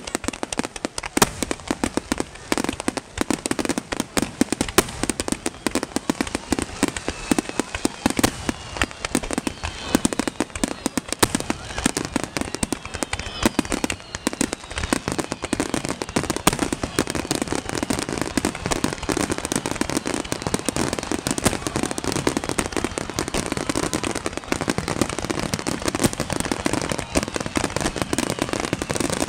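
Fireworks finale barrage: a dense, unbroken run of shell bursts and crackling, with a few whistling streaks partway through.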